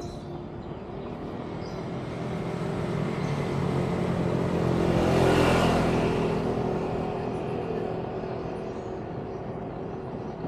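A motor vehicle passing by with a low engine hum and tyre noise, growing louder to a peak about halfway through, then fading away.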